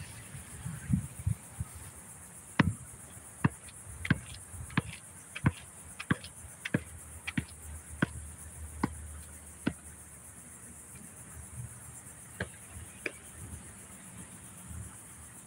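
Basketball dribbled on an outdoor concrete court: sharp single bounces about one to two a second, starting a couple of seconds in and stopping about ten seconds in, then two more bounces a few seconds later.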